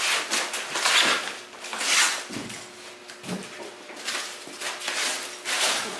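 White foam packing blocks being pulled and slid off a plastic-wrapped unit, with the plastic wrap crinkling; several rustling, scraping strokes.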